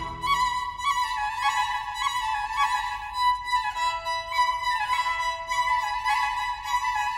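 Instrumental background music: a melody of short notes that change about every half second over held tones.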